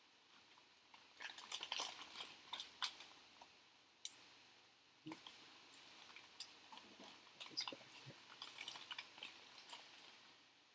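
Clear plastic zip bag crinkling and rustling in the hands as a small servo motor is worked back into it, in an irregular run of crackles with one sharp click about four seconds in.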